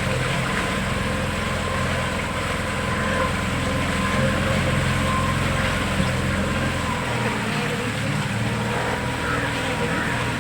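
Boat engine running steadily with a low drone; its deepest part drops away about seven seconds in.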